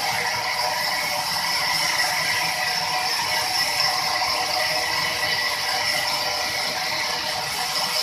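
Large log band saw running and cutting lengthwise through a log as it is pushed along the table: a steady rattling rasp with a high, even whine.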